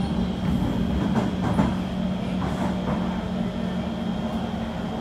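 Kawasaki C151 metro train running on the track, heard from inside the car: a steady rumble with a low hum and a thin high whine, and a few short knocks between one and three seconds in.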